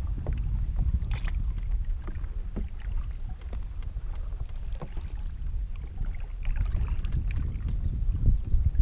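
Wind rumbling on the microphone of a canoe-mounted camera, with scattered light splashes and knocks of canoe paddles in the river water.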